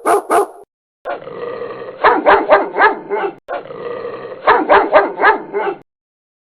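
Dog barking. Two sharp barks come first, then twice over a low growl that breaks into a quick run of four barks.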